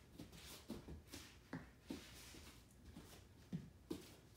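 Faint, soft hand taps on a hard floor, roughly two a second and unevenly spaced, as a person on hands and knees taps one hand beside plastic cones.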